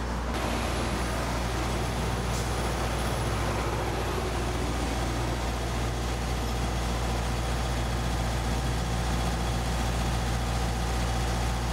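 A motor running steadily: a low, even drone with a hiss over it that does not change.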